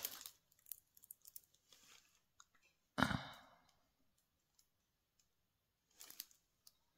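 Crinkling and crackling of a diamond painting canvas's clear plastic cover film as the canvas is lifted and rolled by hand, with scattered small clicks, one louder handling thump about three seconds in, and another brief crackle near the end.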